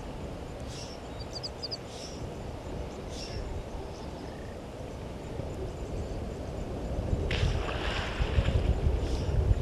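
Water splashing and sloshing as a hippo moves about in the dam, louder from about seven seconds in. A few brief high chirps come about a second and a half in.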